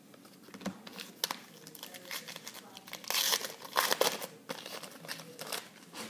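A foil wrapper of a trading-card pack being torn open and crinkled in the hands, a run of sharp crackles that is loudest about halfway through.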